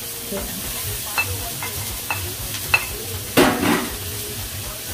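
Onion, garlic and ginger sizzling in hot oil in a wok, stirred with a wooden spoon that knocks against the pan a few times, with one louder burst of stirring about three and a half seconds in.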